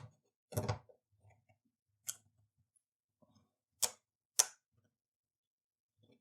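Sharp plastic clicks and knocks as a new Bosch/Siemens dishwasher door lock is pushed into its mounting in the door, the two loudest about half a second apart near the middle.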